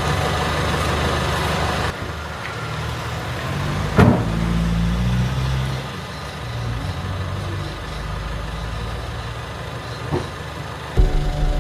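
A motor vehicle's engine running, its low drone shifting in pitch, with a sharp knock about four seconds in and a louder burst of engine sound starting near the end.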